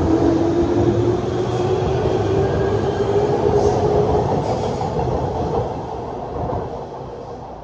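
A JR West 201 series electric train, a thyristor-chopper commuter set, pulling out on the adjacent track. Its motor whine rises slowly in pitch as it accelerates over the rolling noise of the wheels, and the sound fades away in the last couple of seconds as it leaves.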